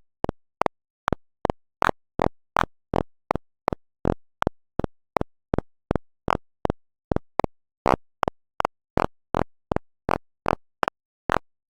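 Short synthesized beeps from the Sound of Sorting program, about three a second and slightly uneven, each a brief tone that dies away quickly, sounding the array accesses of a random sort.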